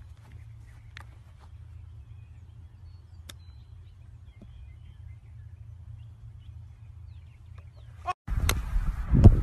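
Low wind rumble on a phone microphone, with faint small birds chirping and a few light clicks. About eight seconds in, it gives way suddenly to much louder wind buffeting.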